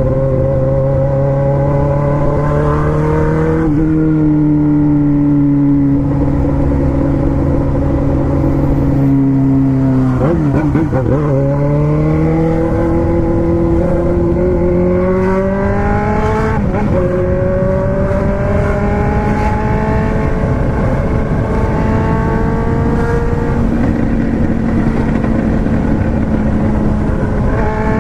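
Four-cylinder car engine running steadily while driving, its pitch shifting with gear changes: a small drop about four seconds in, a dip and climb about ten seconds in, then the note rises gradually toward the end.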